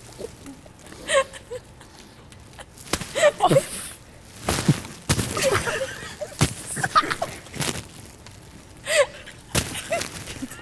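Stifled gasps and suppressed laughter, broken by several sharp soft thuds of cupcakes hitting a seated person.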